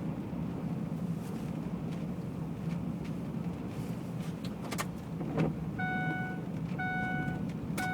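Steady low rumble aboard a ferry, with a couple of knocks about five seconds in, then three short electronic beeps about a second apart near the end.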